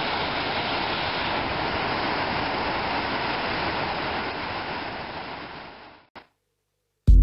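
Water pouring through the open spillway gates of a hydroelectric dam and churning into white water below, a steady rushing. It fades out about five to six seconds in, and electronic music with a beat starts at the very end.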